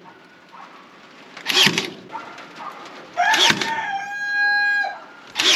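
A cordless fastening gun fires three times, about every two seconds, driving fasteners through wire mesh into a wooden frame. A rooster crows once, starting with the third shot, ending in one long held note.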